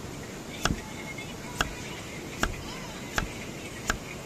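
Kitchen knife chopping through pumpkin onto a thick wooden chopping block: five sharp knocks, about one every 0.8 seconds.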